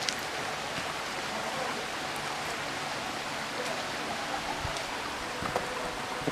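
Steady rushing of a waterfall and stream in the gorge below.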